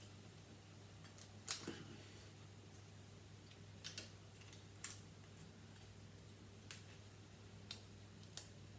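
Plastic Lego pieces clicking and tapping as they are handled and pressed together: about six scattered short clicks, the loudest about a second and a half in, over a faint steady hum.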